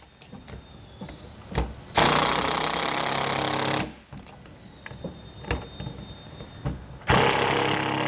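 Ridgid cordless driver running screws down into a trailer door lock's mounting plate, in two runs of about two seconds each: one about two seconds in, one near the end. Light clicks and handling knocks come between them.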